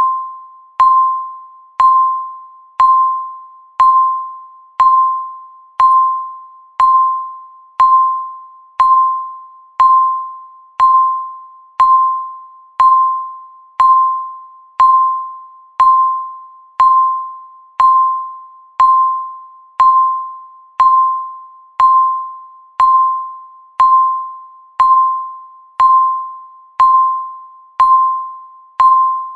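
Countdown timer beep ticking off each second: one short tone at a fixed pitch, once a second, each starting sharply and dying away quickly.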